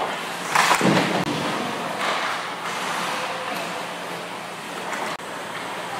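Hockey skate blades scraping and carving across the ice rink, with a loud swish as a skater passes close about a second in, and a single sharp knock a little after five seconds.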